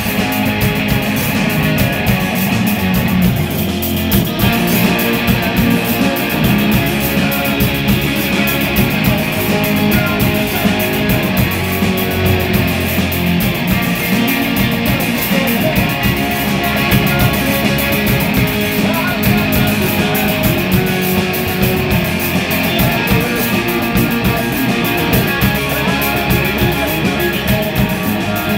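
Rock band playing live: distorted electric guitars, bass and drums at full volume, no vocals.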